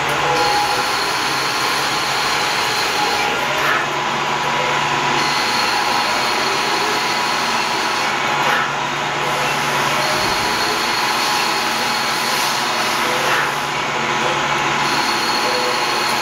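CNC lathe running while a threading tool cuts a 2.0 mm pitch external thread on a hydraulic-cylinder guide bushing, with coolant spraying. The thread is cut in repeated passes, the machine's sound changing in a cycle about every five seconds as the tool cuts, withdraws and returns for the next pass.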